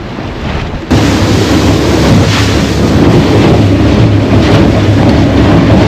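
Boat under way: a Honda outboard motor's steady drone, with wind buffeting the microphone and water rushing past the hull. It jumps suddenly louder about a second in and stays loud and steady.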